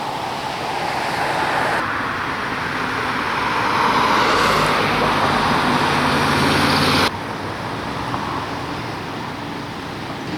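A large vehicle's engine running over steady road noise, growing louder to a peak about five to seven seconds in, then dropping off abruptly.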